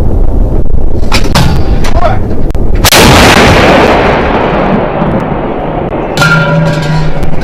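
A 2S3 Akatsiya 152 mm self-propelled howitzer fires one round about three seconds in: a single sharp, very loud blast whose rumble dies away over a couple of seconds, over a steady low rumble.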